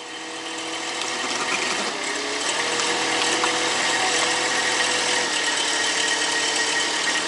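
Small tractor's engine running steadily with a whine over it, fading in over the first couple of seconds.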